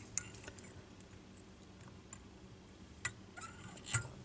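Faint, light clicks of a metal whip-finish tool working the tying thread at the hook eye of a fly in the vise, with two sharper ticks about three and four seconds in.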